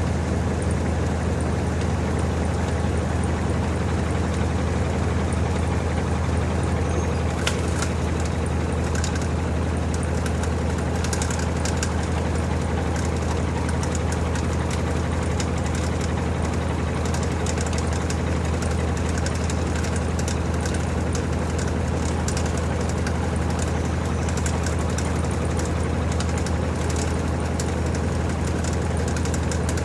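LG TurboDrum WT-R852 top-load washing machine spinning at a steady speed, a constant low hum of the motor and drum, most likely in the final spin of a heavy bedding load. Faint scattered ticks come in about seven seconds in.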